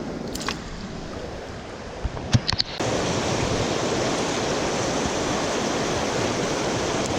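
Fast river water rushing over rocks, a steady whitewater roar. A few short knocks come about two and a half seconds in, and just after them the rushing turns suddenly louder and brighter.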